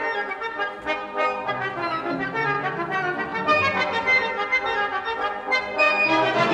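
Orchestral ballet music with prominent brass carrying a quick-moving melody.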